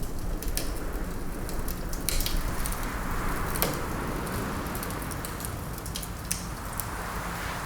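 Wood fire crackling with scattered sharp pops, the loudest about three and a half seconds in, over a low steady rumble and a rush of wind that swells through the second half.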